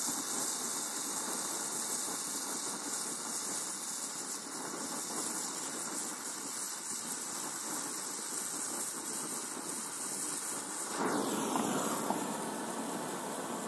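Gas welding torch flame hissing steadily against an aluminium body panel as a seam is fused, until the sound changes about eleven seconds in.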